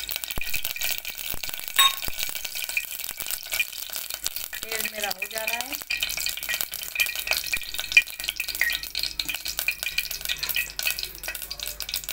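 Mustard oil heating in a pressure cooker, sizzling with a fine, steady crackle.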